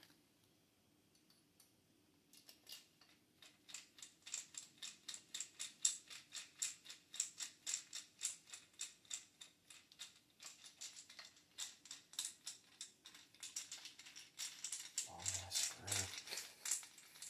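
Rapid, regular small clicks, about three a second, from hand work on an AR-15 pistol's lower receiver. Two short low thumps come near the end.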